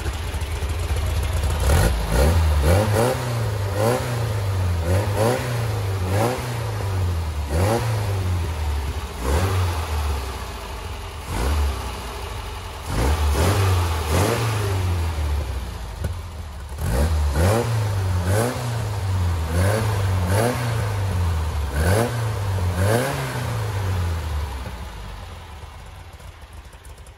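A 1966 VW Type 3 Fastback's rebuilt 1776 cc single-port air-cooled flat-four, breathing through a new performance header, J-tubes and muffler, is being blipped by hand at the throttle linkage. It gives about a dozen short revs, roughly one a second, each rising and falling back, and settles down quieter near the end.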